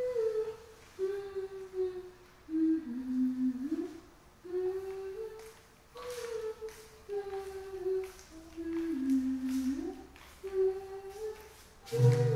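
A single voice humming a slow wordless melody, a phrase that steps down and rises back up, hummed twice. Right at the end, louder music with mallet percussion cuts in.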